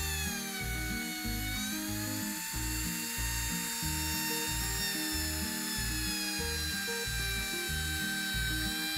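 Makita 3709 trim router running at full speed, a high whine whose pitch sags slightly and recovers as the profile bit cuts along the edge of a board. Background music with a steady beat plays underneath.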